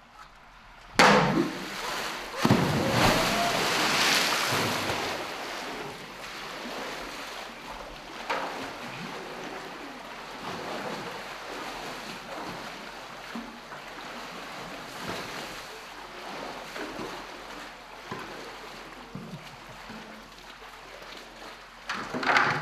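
A large red plastic buoy toy splashes into a polar bear's pool about a second in, then the water sloshes and splashes steadily as the polar bear wades and shoves the toy along with its head. There is a louder splash near the end.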